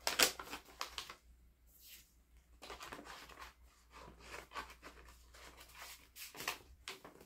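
Card and paper packaging being handled, rustling and scraping in short, irregular scuffs, loudest just after the start and again about six and a half seconds in.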